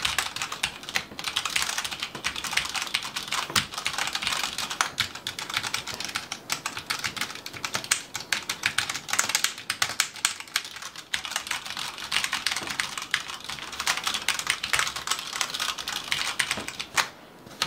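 Typing on a Mountain Everest Max mechanical keyboard: a fast, irregular run of key clicks that goes on without a break.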